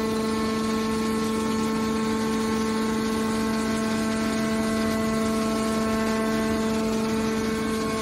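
Hydraulic power unit of a large scrap-metal baler running, a steady pump whine of one fixed pitch, while the press lid is driven closed.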